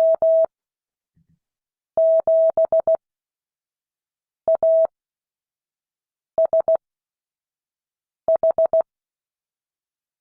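Morse code practice tone: a single steady beep keyed into short and long elements, in five clusters of characters spaced about two seconds apart, sent for students to copy by ear.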